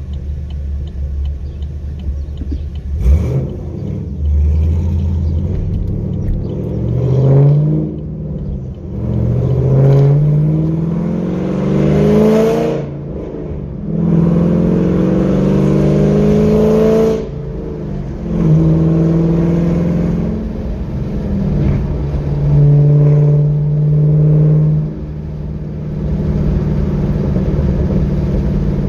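Chevrolet Camaro SS V8 with aftermarket headers pulling hard under acceleration: its revs climb and drop back at each gear change several times, then run more steadily in the second half.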